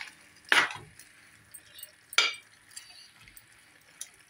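Metal spoon stirring a thick vegetable curry in an aluminium pot: two short scrapes against the pot, about a second and a half apart.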